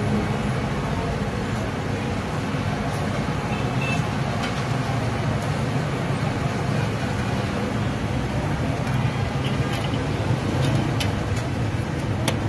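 Steady low rumble of street background noise, like traffic, with faint clicks scattered through and a few more near the end.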